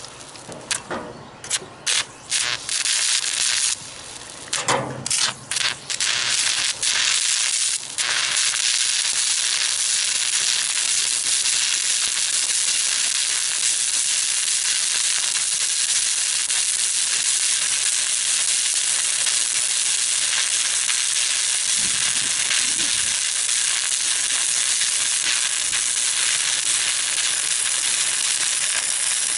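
Stick-welding arc from a 3/32-inch 7018 rod on quarter-inch steel. It breaks off and restarts several times in the first few seconds, then runs as a steady hiss.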